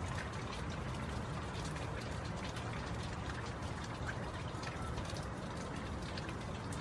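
Steady rain falling, with many individual drops ticking sharply over an even hiss.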